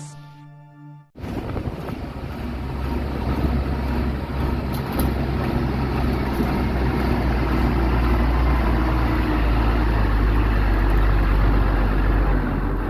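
The tail of intro music fades out, then about a second in a heavy diesel engine cuts in and runs steadily with a deep, even rumble, the kind of engine that powers a concrete pump or truck mixer at a pour.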